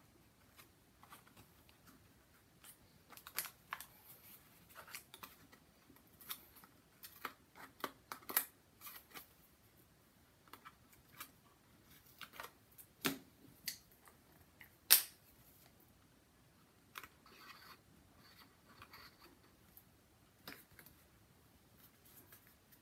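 Quiet handling sounds of small paper-covered cardboard boxes: scattered clicks, taps and scratchy rustles as double-sided tape liner is peeled off and the boxes are pressed down onto a board. A few sharper taps stand out, the loudest about fifteen seconds in.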